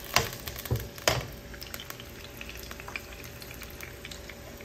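Sliced jengkol beans frying in oil in a nonstick wok, with a low steady sizzle because the oil is not yet fully hot. A stirring utensil knocks against the pan twice in the first second or so, then only faint ticks of stirring and spitting oil remain.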